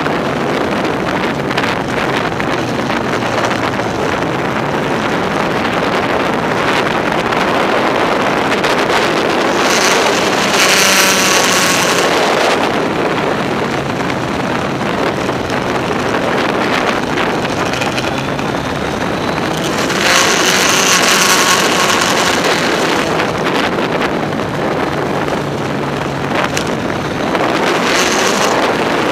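Kawasaki Z1000SX inline-four motorcycle engine running under way, buried in heavy wind rush on the microphone. The engine note comes up and rises in pitch under acceleration about a third of the way in, again about two-thirds in, and near the end.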